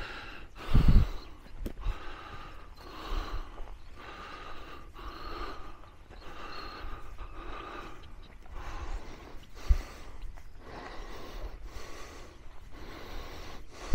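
A person's breathing close to the microphone while walking, with a steady step rhythm of about two a second and a couple of low thumps, one about a second in and one near ten seconds.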